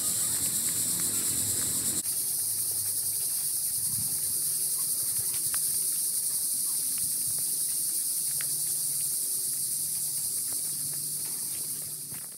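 A dense, steady, high-pitched chorus of cicadas buzzing.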